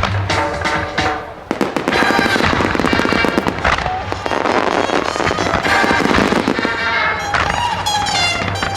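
Starmine fireworks barrage: many shells bursting and crackling in rapid succession, thickening about a second and a half in, over music.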